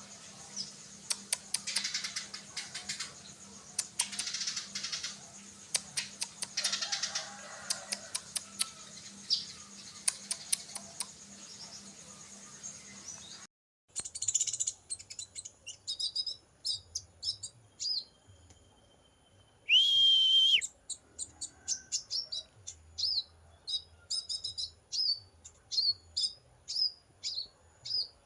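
Small birds chirping in rapid, repeated short high notes, with an abrupt cut about halfway through. About two-thirds of the way in, a single loud steady whistled note lasts about a second and is the loudest sound.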